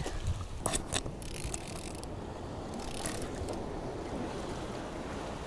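Baitcasting fishing reel being cranked to bring in a hooked catch, with a few clicks and rubbing sounds in the first second and a half and one more around the middle, over steady wind noise on the microphone.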